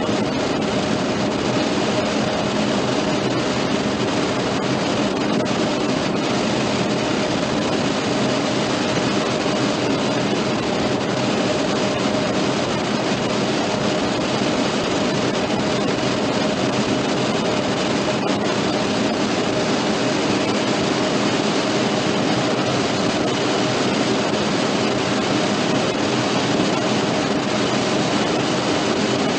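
Cockpit voice recorder audio from a Boeing 757 flight deck: a steady electrical buzz with an even hiss of cockpit noise underneath, holding without change throughout.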